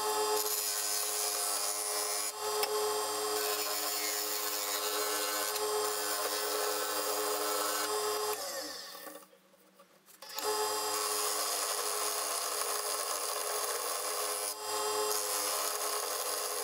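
Wood lathe motor running with a steady hum while a hand-held turning tool scrapes shavings off the spinning wooden blank. A little past eight seconds the lathe winds down and goes quiet. About two seconds later the running and cutting start again all at once.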